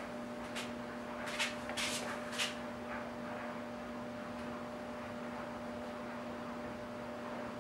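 A few short scrapes and rubs in the first two and a half seconds as a taped 3D-printed plastic template is set down and pressed onto a Baltic birch plywood panel. A steady hum runs underneath.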